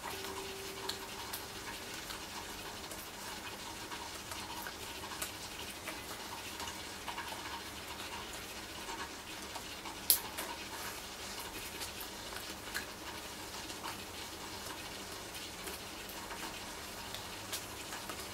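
Quiet room tone with faint rustling and small ticks from a person's hands and clothing as he signs, and soft breathing. One sharp click comes about ten seconds in.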